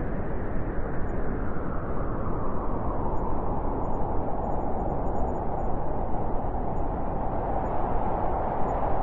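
Blizzard wind howling steadily, its pitch rising a little a few seconds in and then holding.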